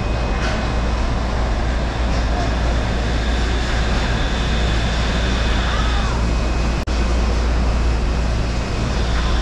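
Shonan Monorail car running on its suspended, rubber-tyred track, heard from inside the cab: a steady low rumble with a thin, steady high electric whine over it, and a momentary break in the sound about two-thirds of the way in.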